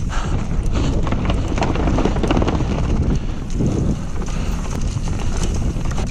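Mountain bike riding fast down a rough trail. Wind buffets the microphone over a steady rumble, with frequent clattering knocks from the bike over bumps.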